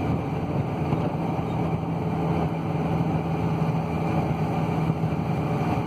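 Ford Transit van's diesel engine and road noise heard from inside the cab while cruising, a steady drone.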